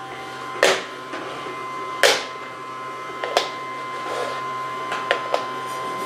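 Toppolino toy vacuum cleaner's small motor whirring steadily with a thin high whine. About five sharp plastic knocks break into it as the nozzle head is knocked against the wooden floor.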